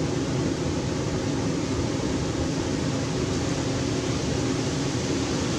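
Steady outdoor background noise, an even rushing hiss with a fluttering low rumble, with no distinct calls or knocks standing out.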